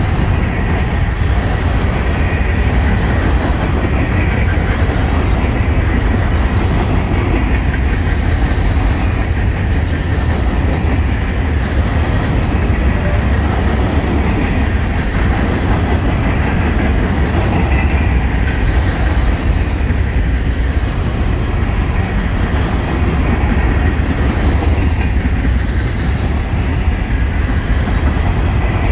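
Freight cars of a trash train rolling steadily past, their wheels on the rail making a continuous low rumble.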